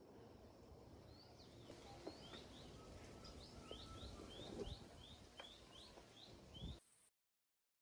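Faint small bird calling in a steady series of short, high, rising chirps, about three a second, over a low background hiss, with a few soft knocks. The sound cuts off abruptly near the end.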